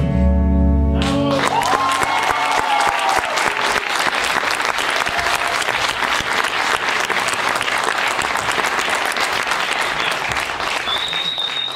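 Final chord of the dance music cutting off about a second in, then an audience applauding steadily, with a few voices cheering just after the music stops.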